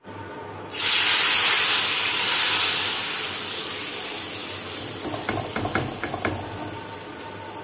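Hot tadka of oil with mustard seeds, cumin and dried red chillies poured onto kadhi: it sizzles loudly the moment it hits, about a second in, and the hiss slowly dies away. Near the end there is a quick run of about six short clicks.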